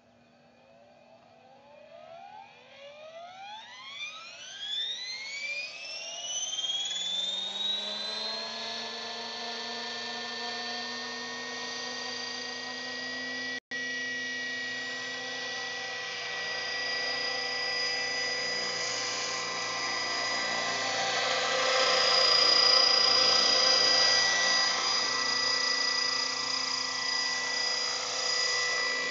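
Align T-Rex 600 radio-controlled helicopter spooling up: a whine that rises steeply in pitch over the first several seconds, then holds as a steady high whine. It grows louder past the middle.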